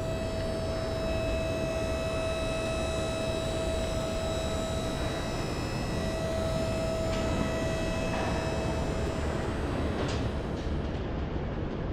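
Steady factory-floor noise on a truck assembly line: a low rumble and hiss with a few held whining tones from the machinery, which break off briefly about halfway through.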